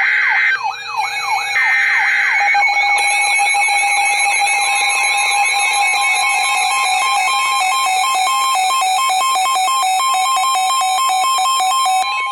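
Weather radio alert for a Special Marine Warning. Short bursts of warbling SAME digital header tones open it, then weather radio receivers sound their alarms together: repeated sweeping siren tones and rapid pulsed beeps. The steady NOAA Weather Radio warning alarm tone joins about five seconds in, and the layered alarms cut off abruptly near the end.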